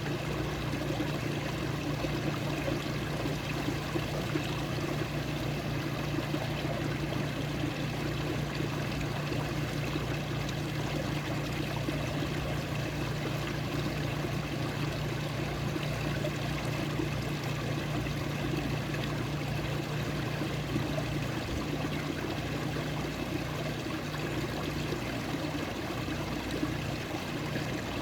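Running water flowing and trickling steadily, with no break or change.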